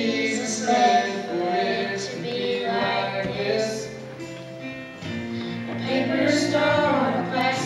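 Two girls singing a duet into a microphone, over an accompaniment of long held low notes.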